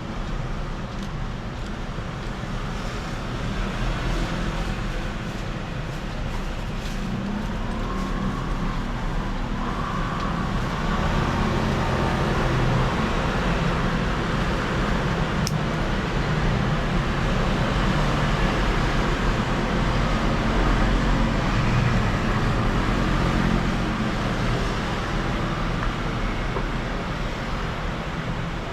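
Steady rumbling background noise, like road traffic or a running machine, swelling slightly midway and easing again near the end.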